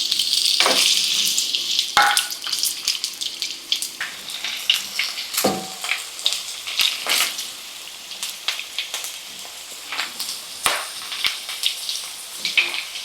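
Chopped potatoes and carrots frying in hot oil in a wok, sizzling loudest in the first few seconds after the potatoes go in and then settling to a steadier sizzle. Scattered sharp clicks and pops run through it.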